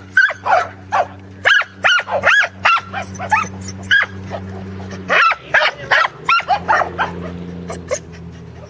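Pembroke Welsh Corgi barking at sheep as it herds them: quick, high-pitched barks, about a dozen in the first four seconds, a short pause, then another run of barks from about five seconds in.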